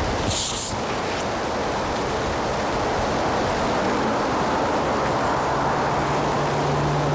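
Wind blowing across the microphone, a steady rushing noise. A brief high hiss comes about half a second in, and a low steady hum joins from about five seconds in.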